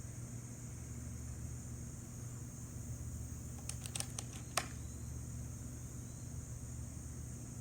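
Steady high-pitched chirring of crickets or other insects, over a low hum. About halfway through come a few quick sharp clicks, the last one the loudest.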